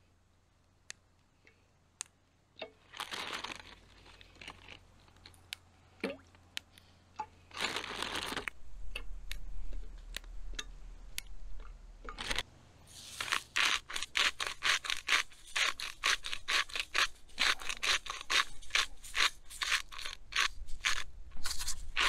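Fresh green beans being snapped into pieces by hand and dropped into a stainless steel pot, with the crinkle of a plastic bag. A few scattered snaps and rustles at first, then a quick, steady run of snaps and rustles from a little past halfway.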